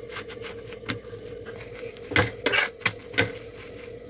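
A spatula knocking and scraping against a tawa (flat griddle) while a chapati is turned, with several sharp clinks, the loudest about two to three seconds in, over a faint steady hum.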